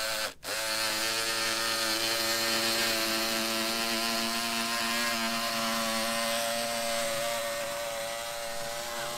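Cordless electric rotary fabric cutter running at a steady pitch as its small round blade slices through a sheet of chopped strand mat fiberglass. It starts, stops for an instant, then runs on steadily.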